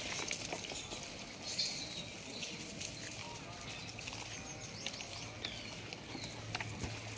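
Rhesus macaques rummaging in a plastic crate of cut cucumber pieces and eating them: scattered small clicks, rustles and crunches, with a few short high chirps.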